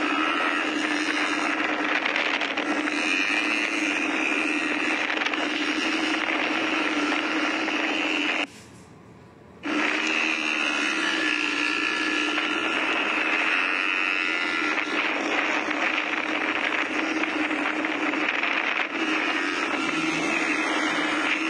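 Quad bike (ATV) engine running steadily with a motor drone, cutting out for about a second near the middle.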